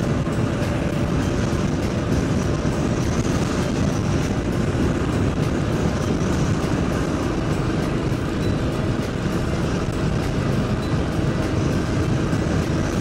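Royal Enfield Bullet single-cylinder motorcycle cruising at steady speed, its engine under a constant rush of wind noise on the microphone.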